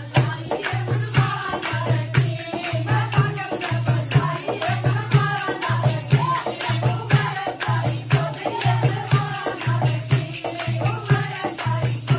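Women singing a Hindi devotional bhajan together, led by one voice, with hand clapping, rattling plastic hand clappers and a dholak drum keeping a steady, driving beat.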